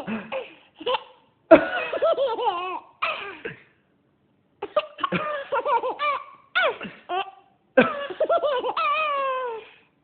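A small child with hiccups laughing in about seven short bursts, the high voice sliding up and down. Several bursts start with a sudden sharp catch.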